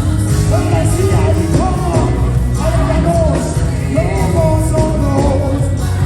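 Live worship band music: a sung melody line gliding and holding over a full, steady bass-heavy accompaniment.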